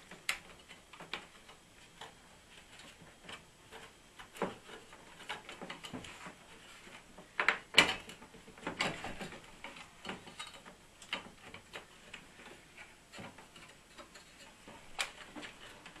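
Irregular small clicks, knocks and rattles of hands handling a dehumidifier's fan motor and its mounting, working it loose to ease it out of its slots, with a louder cluster of knocks about halfway through.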